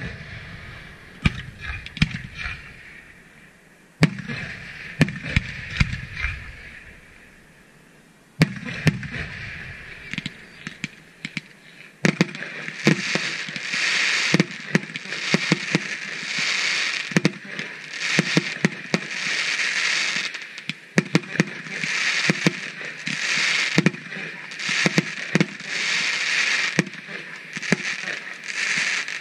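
Aerial fireworks going off: three big shells burst with a sharp bang and a rolling boom, at the start, about four seconds in and about eight seconds in. From about twelve seconds on, a quick run of sharp reports over steady crackling fills the rest.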